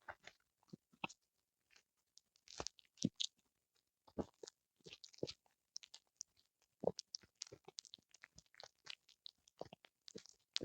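Small Pomeranian–Spitz mix dog chewing a whole eel, with irregular sharp crunches and clicks of its teeth working through it.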